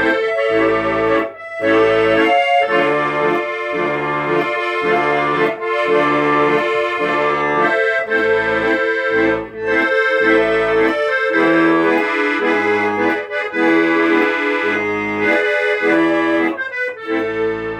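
Instrumental music: a sustained melody over a regular, pulsing bass-and-chord accompaniment, starting to fade near the end.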